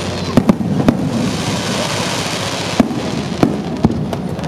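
Aerial firework shells bursting: three sharp bangs in the first second, then three more spaced out between about three and four seconds in, over a steady rush of background noise.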